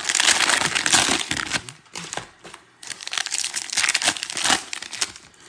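Foil wrapper of a 2021 Panini Prizm football card pack crinkling as it is torn open by hand, in two bouts of crackling with a short pause between.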